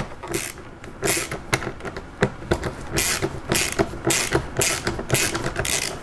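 Ratchet driver on a long extension clicking in short irregular strokes as a large Torx 30 screw is backed out of a car door's inner metal frame.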